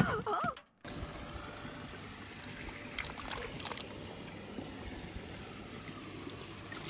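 Steady wash of water-like noise, with a few faint clicks about three seconds in.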